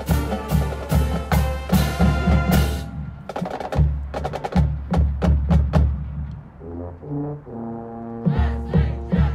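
Background music: a beat-driven track with deep bass hits and percussion. About three seconds in the full beat drops away to sparse sharp clicks, and from about halfway held low chords come in over the bass.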